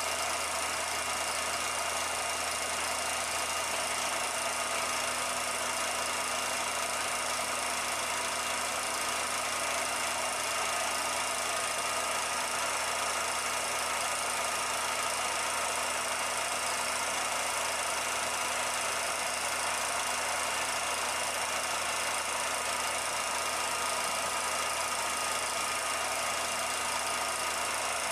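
A steady mechanical running noise, even hiss with a few fixed humming tones, unchanging throughout.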